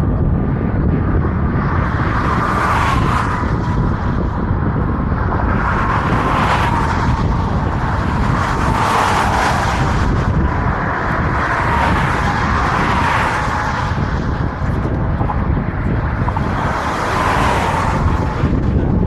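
Road traffic: cars passing one after another, each a swelling rush of tyre and engine noise every few seconds, over a steady low rumble.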